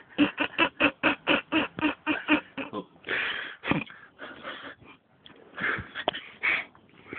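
A person laughing in quick, wheezy bursts, about four or five a second, that turn into slower, breathy gasps after about three seconds.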